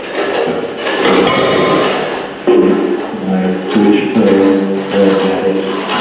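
Live electronic noise: a harsh, crackling wash that gives way about two and a half seconds in to a sustained, throbbing drone of stacked pitched tones, bending briefly before it settles.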